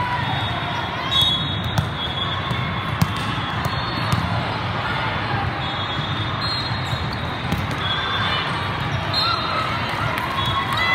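Indoor volleyball game: a few sharp ball hits and short high squeaks over a steady din of crowd chatter in a gym.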